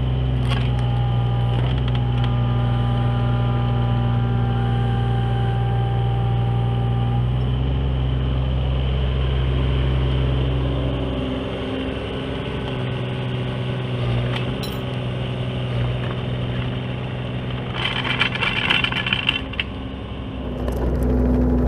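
Kubota KX-018 mini excavator's diesel engine running under work, with a higher whine over it for the first several seconds. The engine note eases about halfway and picks up again near the end, with a short rattling, scraping noise shortly before.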